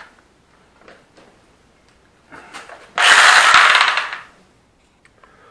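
Bricklaying work: a few light knocks, then about three seconds in a loud scrape lasting a little over a second.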